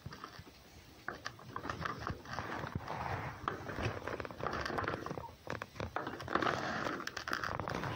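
An animal eating close to the microphone: irregular crunching and chewing with rustling, which begins about a second in and gets busier towards the end.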